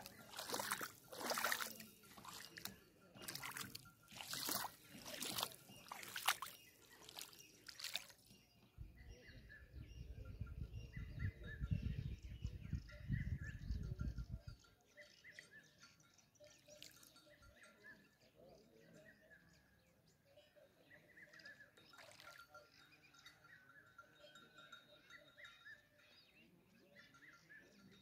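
Bare feet splashing through shallow river water, about a step a second, for the first eight seconds. Then wind rumbles on the microphone for about five seconds. After that only a faint background remains, with short bird calls.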